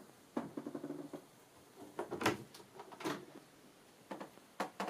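Irregular knocks and clicks, about half a dozen, with short creaks between them, from moving through a boat's small interior cabins.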